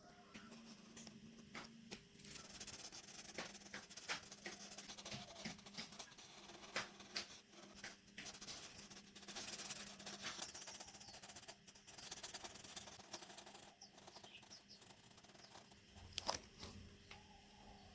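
Faint scratching and rustling with scattered light clicks and taps, the sound of hands working cardboard and small parts at close range.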